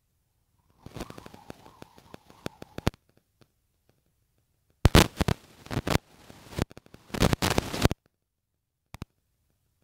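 Crackling, clicking noise on a phone's microphone in irregular bursts: one starting about a second in, a louder run from about five to eight seconds in, and a short crack near the end, with dead silence between.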